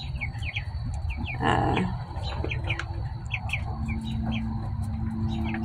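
Baby chicks peeping: many short, high, falling chirps, several a second, with a brief scratchy noise about one and a half seconds in.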